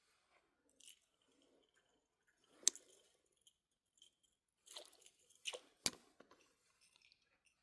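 Mostly quiet, with a few sharp clicks and taps: a strong single one a little under three seconds in and a quick pair near six seconds, plus a couple of faint ticks.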